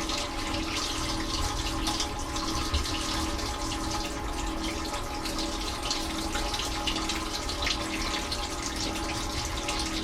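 Dishwasher wash cycle heard from inside the tub: water jets spraying and splashing against the dishes and walls steadily, over a steady hum of the wash pump.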